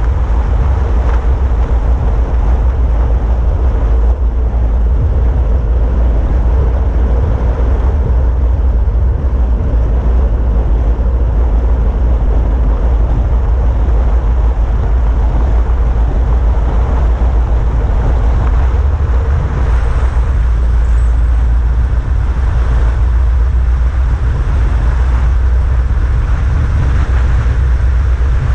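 Steady, loud wind rushing over the camera microphone on a road bike descending fast, at about 50 to 60 km/h, with a deep rumble and the hiss of the tyres on asphalt.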